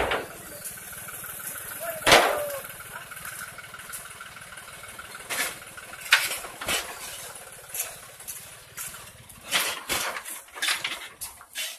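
Heavy machine's engine idling steadily, broken by a series of sharp knocks, the loudest about two seconds in and several more in the second half.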